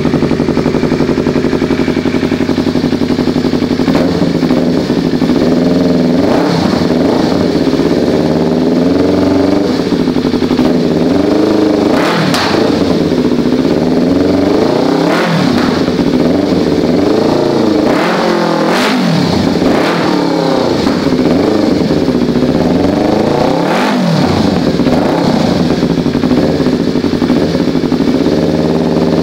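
Yamaha R25's parallel-twin engine through an Akrapovic full-system exhaust, running steadily for about four seconds, then revved again and again, its pitch rising and falling with several sharp high peaks.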